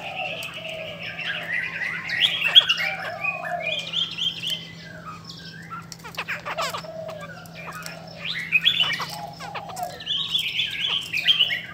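Caged laughingthrushes singing, a run of varied whistled phrases mixed with harsh squawking notes, over a faint steady low hum.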